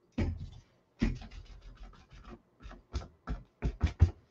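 A crumpled paper towel loaded with red paint is dabbed and dragged across a canvas, making a quick, irregular run of short scratchy strokes, several a second, with the loudest ones near the end.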